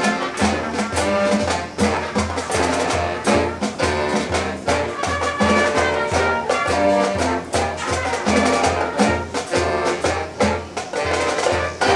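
High school marching band playing, brass (trumpets and trombones) over a steady drum beat.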